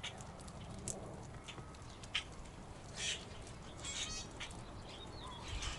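Backyard birds calling: scattered short, sharp chirps and calls, with a brief buzzy rattle about four seconds in.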